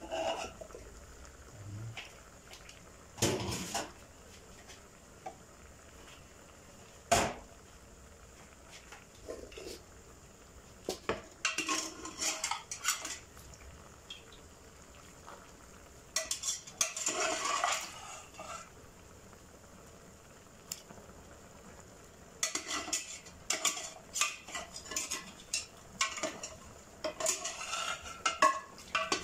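Aluminium pressure cooker and its lid being handled: scattered metal clanks and knocks, then clustered clattering with pauses between, as beef is put into the pot.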